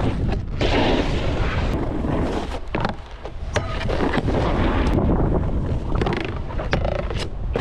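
Snowboard sliding and scraping over snow while riding, with wind rumbling on the microphone and a few sharp scrapes and knocks; the noise dips briefly about three seconds in.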